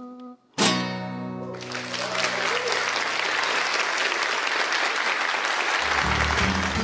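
A held sung note ends, then a last chord is strummed on a nylon-string classical guitar and rings out, and a studio audience breaks into steady applause. Low notes of closing music come in under the clapping near the end.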